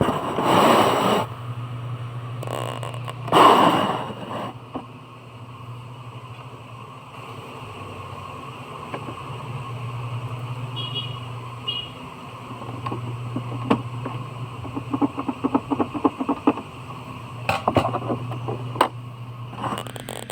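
Parts of an Epson L360 printer being handled during disassembly or assembly. Two loud scraping rushes come near the start, then scattered clicks and a quick run of ticking about two thirds of the way in, over a steady low hum.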